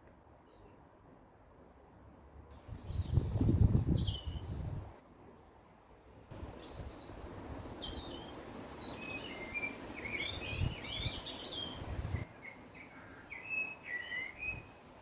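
Several small songbirds chirping and singing in short, quick phrases over an outdoor background hiss. A loud low rumble breaks in about three seconds in and lasts a couple of seconds, and the background changes abruptly a few times.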